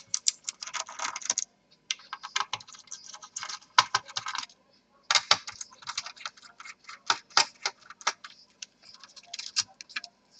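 Screwdriver clicking and scraping against small metal screws while the screws holding a laptop's cooling heatsink to the motherboard are undone: dense runs of light clicks and rattles with two short breaks.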